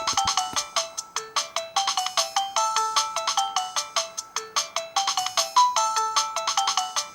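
Alcatel 2000X ringtone played through the loudspeaker of a Samsung GT-B2710 phone: a fast tune of short, bright synthesized notes, its phrase repeating about every three seconds.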